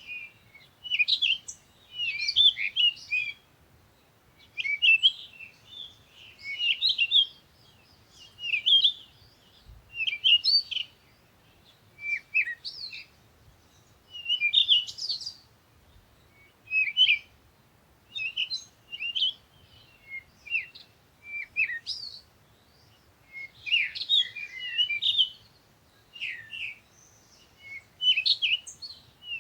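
Birds chirping in short bursts of quick, high twittering notes, a burst every second or two.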